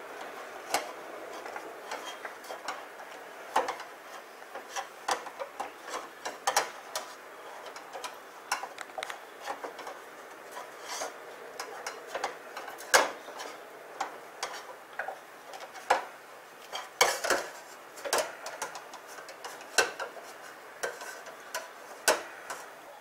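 A spoon stirring and pressing a stiff churro dough in a small stainless steel saucepan, with irregular knocks and scrapes of the spoon against the pan. The dough is very stiff.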